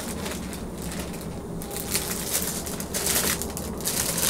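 Thin plastic bag crinkling and rustling as items are handled and pulled out of it, the crinkling getting busier after about two seconds.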